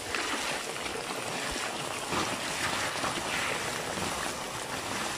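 Heavy downpour: a dense, steady hiss of rain splashing onto flooded, waterlogged ground.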